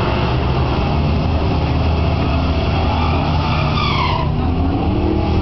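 Drag racing car doing a burnout: its engine is held at high revs while the rear tyres spin and smoke. A high tyre squeal comes in about three and a half seconds in and stops suddenly just after four seconds.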